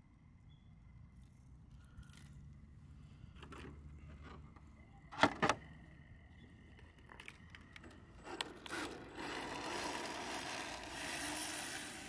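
Two sharp knocks about five seconds in as a Reve D RDX RC drift car is set down on asphalt, then from about nine seconds a steady rushing run noise as the car drives off on its drift tyres under brushless-motor power.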